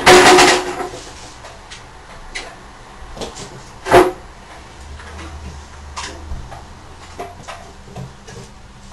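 A loud clattering bang at the start and a sharp knock about four seconds in, with lighter clicks and knocks between.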